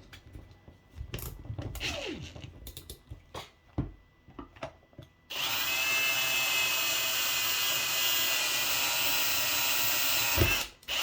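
Scattered clicks and knocks of handling as the bit is changed, then about five seconds in a power drill starts and runs steadily for about five seconds, boring out a hole with a larger bit to widen it, and stops abruptly.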